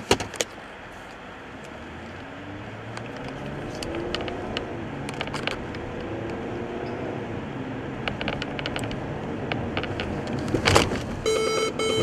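Cabin noise of a Ford SUV accelerating, its engine rising in pitch over the first few seconds along with tyre and road noise. Near the end, after a thump, the vehicle-to-vehicle collision warning sounds as a rapid string of electronic beeps, warning of a braking car ahead.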